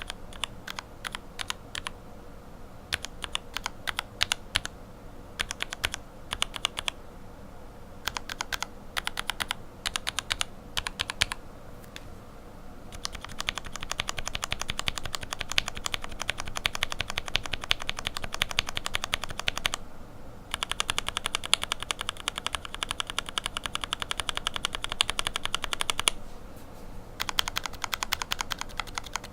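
Lubed linear mechanical keyboard switches (Cherry retooled lower housings, Revo White stems and springs, Tribosys 3204 lube) being typed on. Scattered single keystrokes and short runs give way, about halfway through, to fast continuous typing. The typing breaks off briefly twice near the end.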